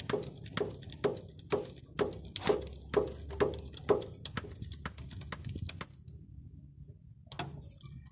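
Hand-lever grease gun being pumped into a grease fitting on a combine harvester: a string of sharp clicking strokes about two a second, then a few fainter ones and a short pause before one last click.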